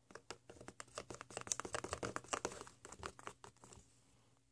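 Plastic spatula stirring a thick, sticky slime mixture of glue and soda in a small plastic tub: a fast, irregular run of wet clicks and ticks that stops about three and a half seconds in.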